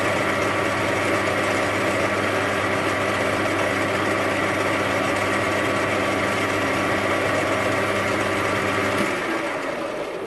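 Metal lathe running with a steady whirring hum of motor and gearing while a centre drill feeds into the spinning workpiece. About nine seconds in the lathe is switched off and begins to run down.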